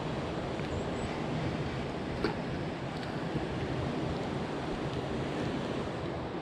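Steady rushing outdoor noise of wind on the microphone and water, with one faint click a little over two seconds in.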